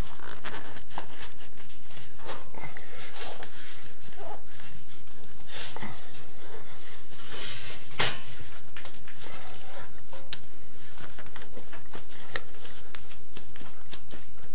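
Grey plastic sewer pipe fitting being twisted and pushed by hand onto an oiled pipe joint: scraping and creaking of plastic, with repeated sharp clicks, the loudest about eight seconds in.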